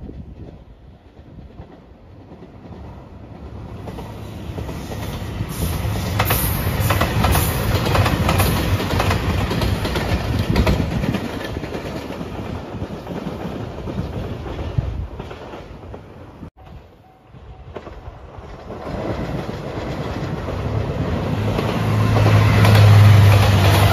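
JR Shikoku 2700 series diesel limited-express trains passing on the line. First the yellow Anpanman-liveried train approaches, passes with wheels clattering over the rail joints, and fades. After a sudden break, a second 2700 series train approaches, its diesel engines humming steadily louder near the end.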